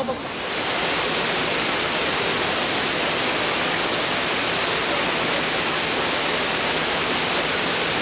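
Steady rushing noise like falling water, coming up within the first second and then holding level.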